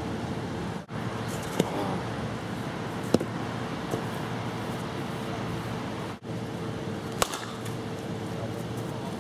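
Outdoor ambience with a steady faint hum, broken by a few sharp, short clacks of a plastic wiffle-ball bat striking the ball. The sound drops out briefly twice.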